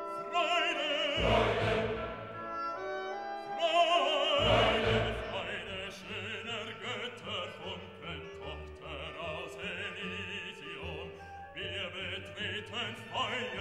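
Orchestral music with an operatic voice singing a wavering high line. Two heavy low drum strikes come about one and four seconds in.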